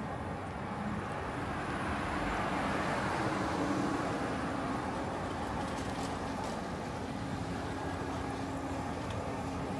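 Street traffic: a car passes by, its noise swelling and fading about three to four seconds in, over a steady hum of road noise.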